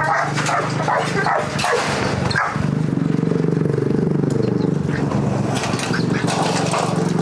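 A dog barking and yipping for the first two seconds or so, then a steady low drone with slowly shifting pitch that runs on to the end.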